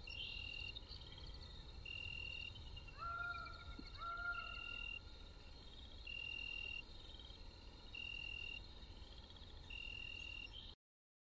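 Chorus of calling animals, insect-like: a high steady note repeating about every two seconds over fast chirping trills, with two short rising calls about three and four seconds in. It cuts off abruptly shortly before the end.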